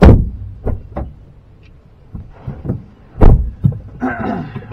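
Car doors shutting, heard from inside the cabin. The rear door shuts with a heavy thump, there are a couple of lighter knocks, and a little over three seconds later the driver's door shuts with a second heavy thump as the driver gets in.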